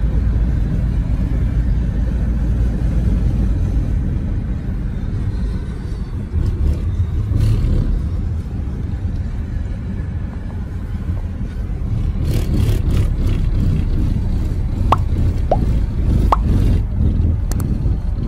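Steady low rumble of road and engine noise inside a car cruising on a highway. A few short pops sound near the end.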